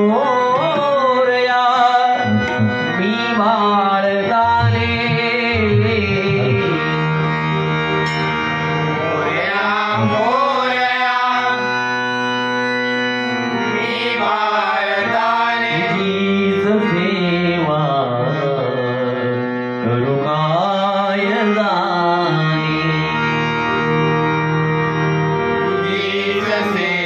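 Male bhajan singer singing a devotional Marathi prayer (prarthana) in a high, ornamented voice, the melody sweeping up and down in long glides. Steady sustained instrumental notes and drums accompany him.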